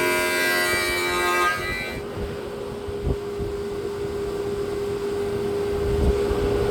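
A machine running with a steady whine over a noisy rumble. In the first second and a half a denser sound made of many held tones overlies it, then stops.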